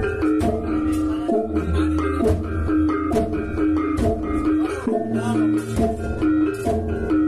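Balinese baleganjur gamelan playing in full: large kendang drums, hanging gongs, small kettle-gongs and clashing cengceng cymbals struck in a fast, dense rhythm.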